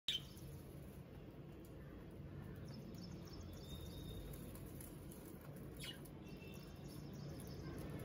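Budgerigars chirping faintly, a few short high chirps over a steady low background hum.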